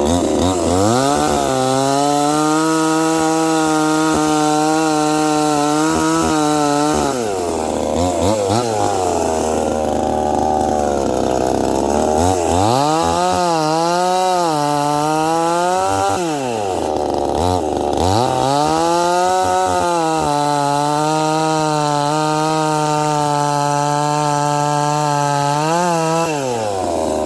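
Hessen Promaster 5220 52 cc two-stroke chainsaw revving. It is held at high revs for about six seconds and drops back to idle, is blipped up twice, then is held high again for about seven seconds before dropping back near the end.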